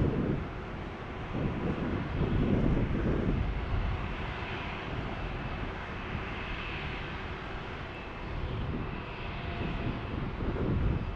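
Jet aircraft engines running with a steady rumble and a faint high turbine whine. Wind gusts on the microphone come and go at the start and near the end.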